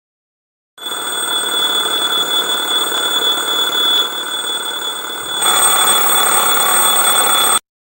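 Alarm clock ringing loudly and continuously with a steady high tone. It gets louder and harsher about five and a half seconds in, then cuts off suddenly near the end.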